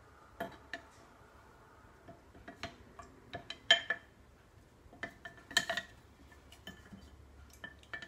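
Wooden chopsticks knocking and scraping against the inside of a glass jar while fishing out a piece of vinegar mother: irregular light taps and clinks, the loudest a little under four seconds in and again near six seconds.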